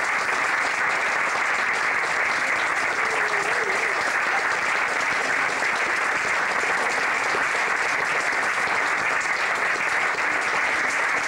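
Theatre audience applauding steadily, a dense unbroken clapping.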